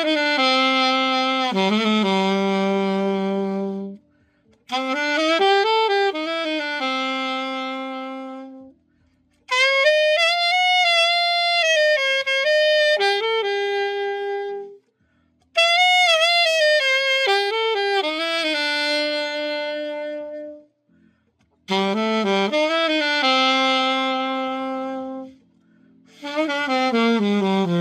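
Yamaha YAS-62S silver alto saxophone played solo, freshly overhauled: five short melodic phrases, each ending on a held note that fades away, with brief pauses between them.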